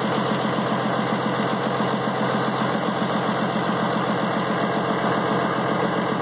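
Engine of a truck built from a military deuce and a half idling steadily, with an even, rapid pulse.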